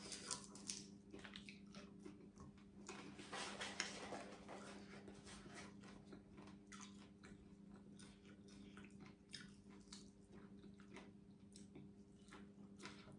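Crunching and chewing of crispy deep-fried sun-dried sea snakehead fish, with crackles that are thickest in the first four seconds and then thin out into softer chewing. A faint steady hum runs underneath.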